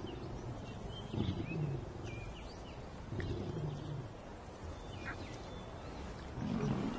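Lion giving low grunting calls, three times, each falling in pitch, with small birds chirping faintly behind.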